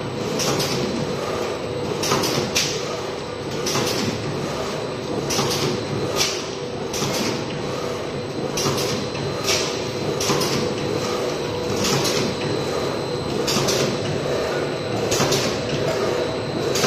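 Paper straw forming machine running: a steady mechanical hum with short hissing strokes a little more than once a second, unevenly spaced, from its air-driven cutting heads.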